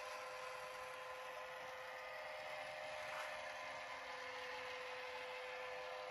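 A steady mechanical hum with a whine, holding one pitch, over a faint hiss.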